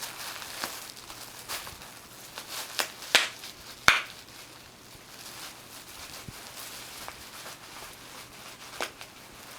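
Bubble wrap being popped by a dog: scattered sharp pops at irregular intervals, the loudest about four seconds in.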